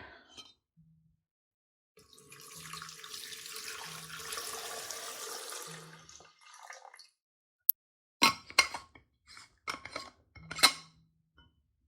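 Water poured into the top-fill tank of an ultrasonic cool mist humidifier for about four seconds. A sharp click and a series of short knocks and clicks follow near the end.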